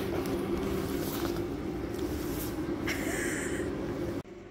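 BMW M42B18 1.8-litre four-cylinder engine running at a steady speed, with its ignition coils wired wrongly. The sound cuts off sharply near the end.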